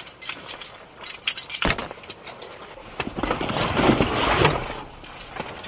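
A backpack and gear being handled inside a car: a run of sharp clicks and knocks, with heavier fabric rustling about three to four and a half seconds in.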